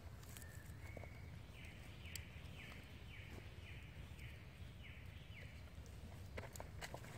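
A bird calling: two short high notes, then a run of about eight quick repeated notes, each dropping slightly in pitch. Under it are a steady low rumble and a few light clicks and rustles.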